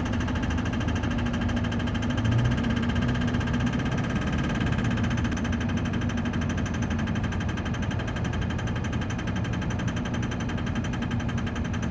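LB7 Duramax 6.6-litre V8 turbo-diesel running steadily with a fast, even clatter. The engine has bad injectors.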